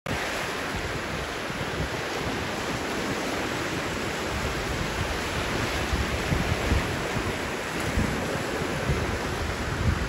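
Small Lake Michigan waves breaking and washing up a sand beach in a steady hiss of surf. Wind buffets the microphone in low, uneven rumbles that grow stronger in the second half.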